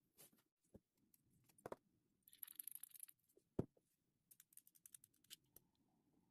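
Slime being handled, faint: scattered soft sticky clicks, a patch of fine crackling about two and a half seconds in, and a sharper click a second later.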